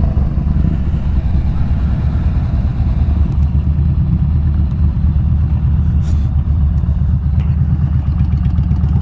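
Yamaha Bolt motorcycles' air-cooled V-twin engines running at low speed and idling, a steady low pulsing sound.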